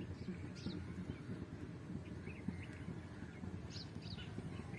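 Outdoor ambience: short, faint bird chirps several times, over a low, uneven crackling noise.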